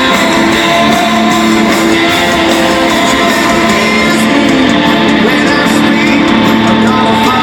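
A rock band playing live, with loud strummed electric guitars and a faint sung line, as heard in an arena audience recording.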